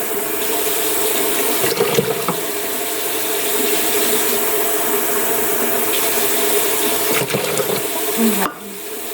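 Water running steadily from a tap and filling a container, shut off sharply near the end.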